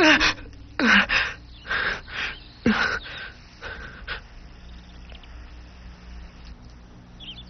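A boy panting hard in short breaths, some with brief falling groans. The breathing dies away about four seconds in, leaving a faint steady hum.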